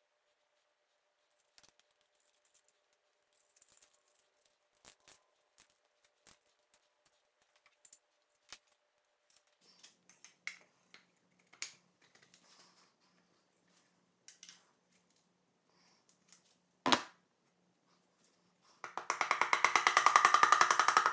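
Piston being tapped down through a ring compressor into the cylinder bore of an Oldsmobile 350 Rocket V8 block with the handle end of a hammer. There are scattered light clicks and taps, one sharp knock about three-quarters of the way through, then a rapid run of taps near the end.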